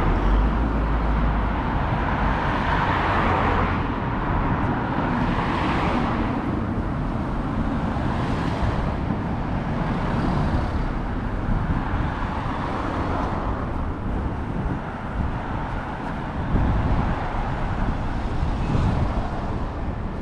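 Road traffic: a steady hum of cars, with one car after another passing every few seconds.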